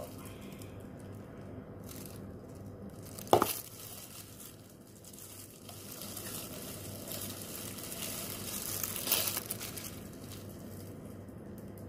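Disposable plastic gloves crinkling and rustling as hands handle and stuff a raw whole chicken, with one sharp knock a few seconds in and a louder burst of rustling later on.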